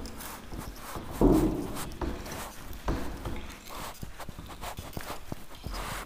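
Board duster wiping a whiteboard in uneven rubbing strokes, with scattered light knocks against the board; the loudest stroke starts sharply about a second in.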